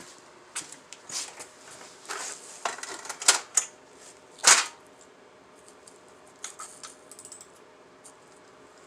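Small metal parts and hand tools clinking and clattering: a run of sharp clicks and clanks, with the loudest single clank about four and a half seconds in, then a few lighter ticks.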